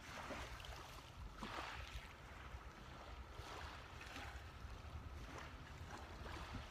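Faint ocean surf washing onto a beach in soft, repeated swells, over a low wind rumble on the microphone.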